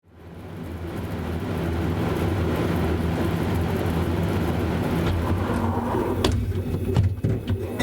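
A beer fridge's cooling unit running with a steady low hum. A few sharp knocks come in near the end.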